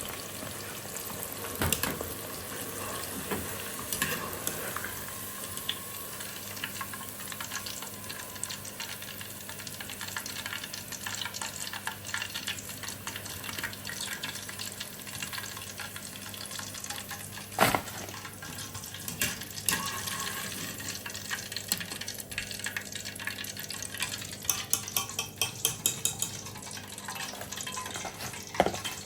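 Food sizzling as it fries in hot oil, with a metal utensil clicking and scraping against the pan. There is a sharper knock about two-thirds of the way through, and a quick run of clicks near the end.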